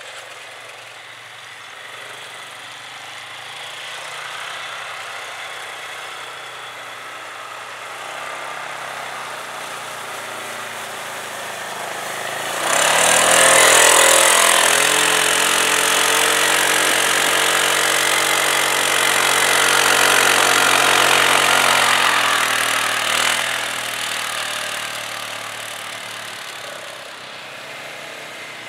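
ATV engines running on a snowy trail. About twelve seconds in, one quad comes close while climbing a snowy bank, its engine suddenly much louder and working under load for several seconds, then fading as it moves away.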